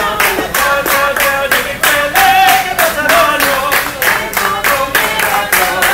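Waiters singing an opera tune over hand-clapping that keeps a steady beat of about three claps a second. One voice holds a long note a little after two seconds in.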